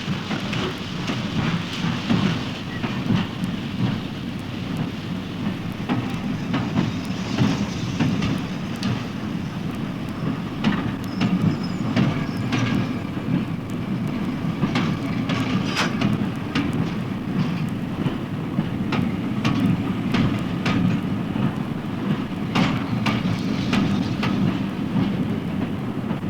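A steady low rumble with sharp clicks and knocks scattered irregularly through it.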